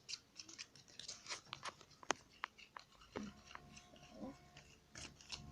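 A stick stirring shampoo in a container: irregular small wet clicks and scrapes. A steady low hum comes in about three seconds in.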